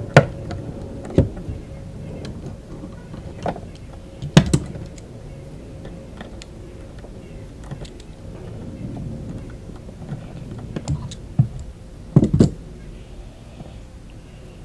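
Handling noise from repair work on the trolling motor mount: irregular sharp clicks and knocks, a few of them louder, with a faint steady hum in the first half.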